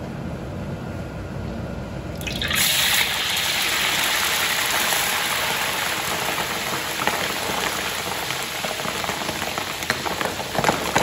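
Marinated pork skin pieces dropped into hot oil in a wok: about two and a half seconds in, a sudden loud sizzle starts and keeps going as the skin deep-fries, with scattered pops and crackles near the end.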